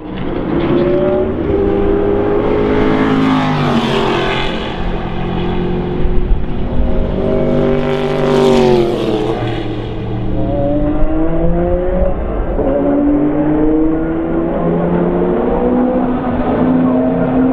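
Sauber Mercedes-Benz C11 Group C prototype's 5.0-litre V8 racing engine at speed, its pitch climbing in steps through upshifts. It sweeps past close by about three seconds in and again about eight seconds in, the pitch dropping sharply as it goes by.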